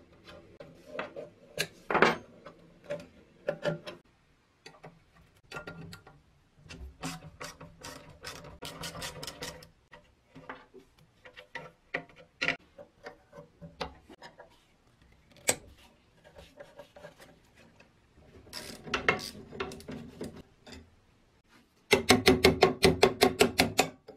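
Hand tools working the bolts of a rusty Hanning bench grinder: scattered metal clicks, clinks and short scraping turns, with a rapid run of even clicks near the end.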